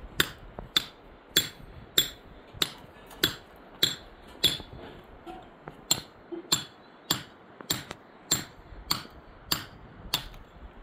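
Repeated hammer-like blows at an even pace, about one every 0.6 s, each with a brief ring. The blows pause once for about a second and a half in the middle.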